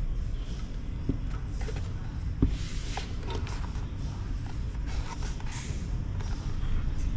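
Handling noise from a 10-inch car subwoofer being turned over in the hands: scattered light knocks, rubbing and rustling, with a sharper knock about two and a half seconds in, over a steady low rumble.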